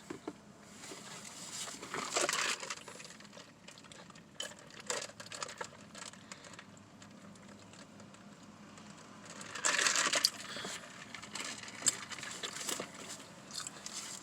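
Close-up eating sounds of a sausage egg McMuffin: chewing with small wet clicks, and two louder crinkling rustles, about two seconds in and about ten seconds in, from the sandwich's paper wrapper being handled.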